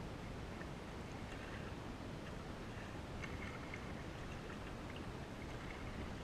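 Kayak paddle dipping into slow river water, with faint small splashes and drips over a steady low rumble.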